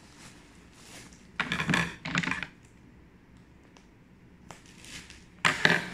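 Clear plastic packing bag crinkling and crackling as it is handled and pulled open, in two bursts: one around a second and a half in, and another near the end, with a few small clicks between.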